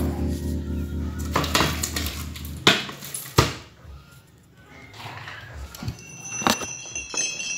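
Background music that stops about a third of the way in, then a handful of sharp clacks and knocks, two of them close together, with quiet between them.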